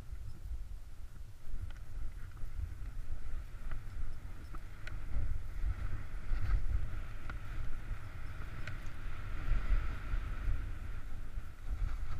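Snowboard sliding through powder snow: a low wind rumble on the microphone with the board's hiss over the snow, which grows louder from about halfway through, and scattered light clicks.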